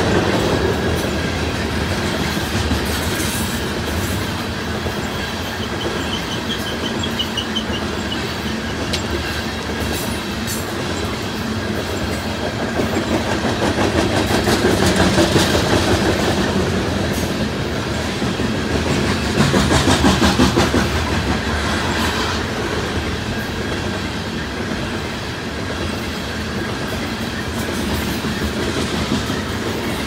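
Loaded coal hopper cars rolling past, steel wheels clacking over rail joints above a steady rumble, with a thin wavering squeal briefly about six seconds in.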